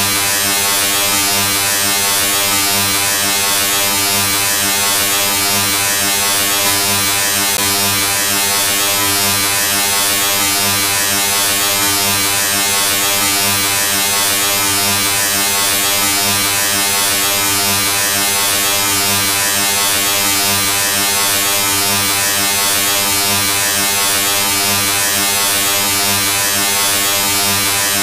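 A steady, harsh electric buzz: one unchanging droning tone thick with overtones, strongest low down, without a break.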